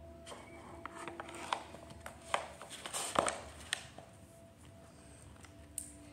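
Plastic fashion dolls being handled and moved on a wooden floor: a string of small clicks and taps, with a brief rustle about three seconds in, then quieter handling.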